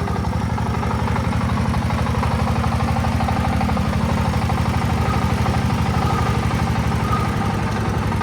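Single-cylinder diesel engine of a Vietnamese công nông farm truck running steadily with an even, rapid chugging beat of about ten strokes a second.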